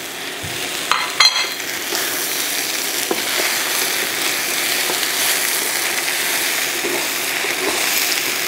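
Sliced potatoes and onions sizzling in hot oil in a stainless steel skillet while being stirred and tossed with a wooden spatula. The sizzle builds over the first second or two, with a couple of light knocks about a second in.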